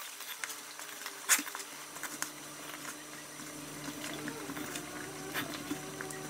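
Hands kneading dumpling dough in a stainless-steel bowl: soft squishing with scattered light knocks against the bowl, the sharpest about a second in. Under it, a pot of water faintly bubbling on the boil.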